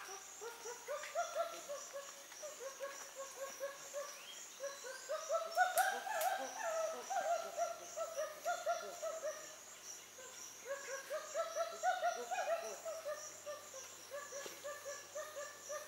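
Chimpanzee pant-hoots: long series of short rising hoo notes that speed up and swell to a loud climax twice, about six seconds in and again about twelve seconds in. A steady high-pitched insect chorus buzzes throughout.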